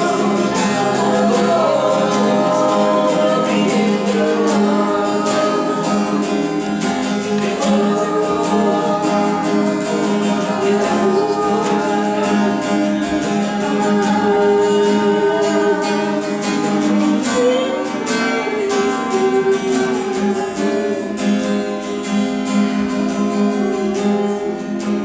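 Spontaneous worship music: voices singing a free-flowing melody over a strummed acoustic guitar.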